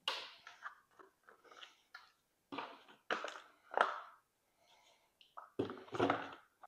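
Irregular rustling, light clicks and knocks of hands working a plastic golf-cart dash panel and its wiring harness, freeing the diagnostic port, in short scattered bursts.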